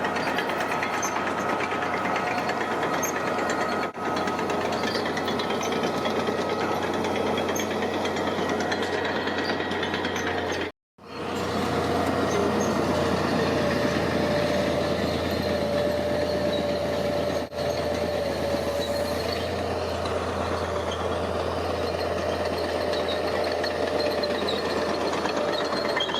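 Diesel engine of heavy earth-moving machinery running steadily, with a dense clattering rattle. The sound cuts out for a moment about eleven seconds in, then carries on the same.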